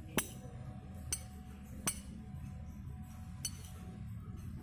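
Metal spoons clinking against soup bowls as people eat: four short, ringing clinks spread over a few seconds, over faint background music.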